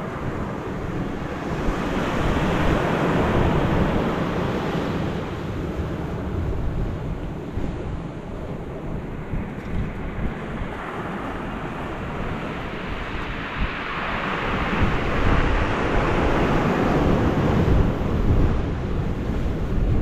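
Sea waves breaking against rocks along the shore, with a continuous rushing wash that swells about two seconds in and builds again near the end. Wind buffets the microphone with a low rumble.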